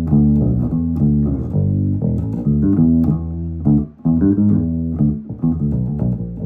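Electric bass guitar played through a Barefaced bass cabinet, a run of plucked low notes with a short break about four seconds in. The notes come through clean, without the speaker buzz of the blown-sounding Bag End drivers, apart from a little chuffing.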